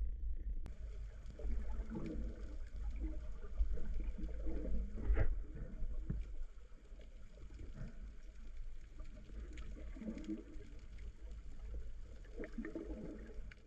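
Muffled underwater sound of a spearfisher swimming slowly: water moving and gurgling against the submerged camera, over a steady low rumble.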